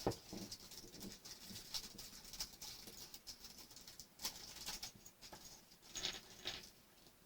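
Small plastic model-kit parts being handled on a work surface: irregular light clicks and rustles, a little louder about four and six seconds in.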